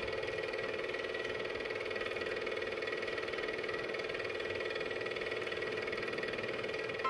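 Super 8 film projector running: a steady, rapid mechanical chatter from the film transport over a constant motor hum.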